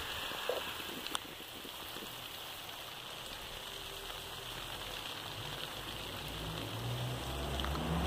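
Steady outdoor hiss, with a couple of light clicks early on and a low rumble building near the end.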